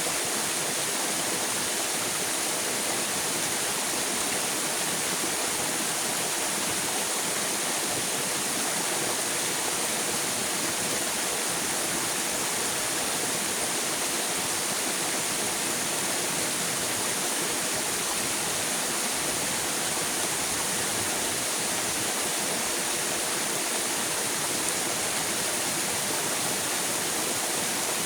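River water rushing steadily, an even unbroken flow with no distinct splashes or changes.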